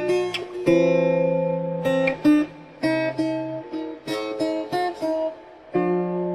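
Acoustic guitar playing: strummed chords and single plucked notes, with a run of short notes in the middle.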